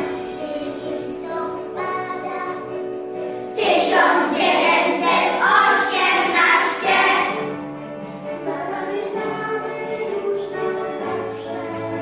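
A children's class singing together over an instrumental backing track; the voices are loudest from about three and a half to seven and a half seconds in.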